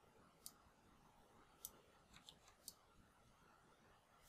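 Faint, sharp clicks of a computer input device, about six in all, irregularly spaced, with a quick run of three or four a little past the middle, over near-silent room tone.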